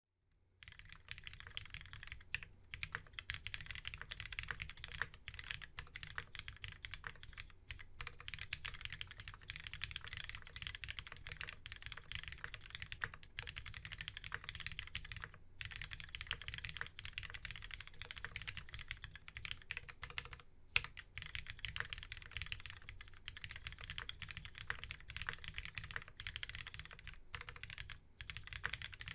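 Keycult No.2 custom mechanical keyboard with a brass plate, lubed linear Cherry MX Black switches, 70 g springs and GMK keycaps, being typed on quickly and continuously, with a few brief pauses. A steady low hum runs beneath the keystrokes.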